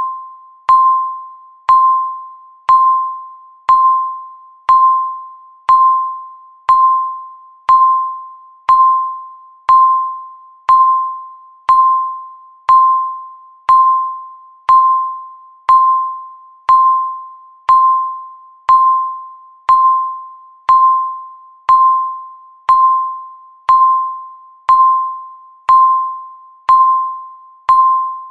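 Countdown timer's electronic beep: a single clear ding-like tone struck once a second, each one starting sharply and fading away before the next, marking the seconds ticking down.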